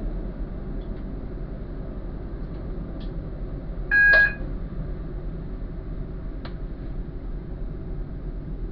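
A train running along the track with a steady low rumble, heard from the front of the train. About four seconds in, a single short, loud electronic beep sounds, with a few faint clicks around it.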